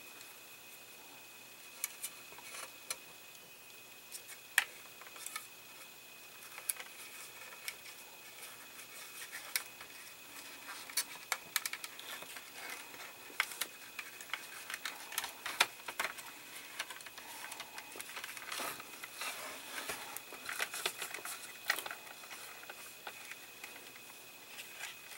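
Light, irregular clicks, taps and rustles of hands handling plastic model parts while routing a thin wire and tube through a plastic dashboard; the clicks come more often in the second half.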